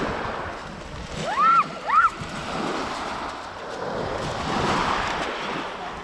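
Small waves washing and breaking onto a pebble beach, a steady hiss that swells and eases. About a second and a half in come two short high-pitched calls close together, each rising and falling.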